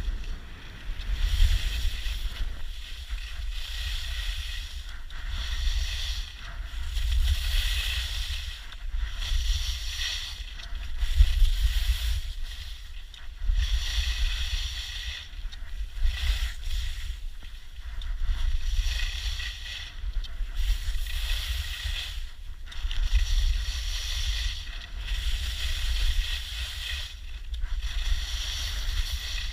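Skis carving down a groomed piste, a scraping on the snow that swells and fades with each turn about every one and a half to two seconds, under a heavy rumble of wind on the microphone from the speed of the descent.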